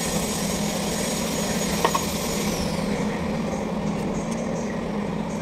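Kubota D850 three-cylinder diesel engine running steadily, with a single light click about two seconds in.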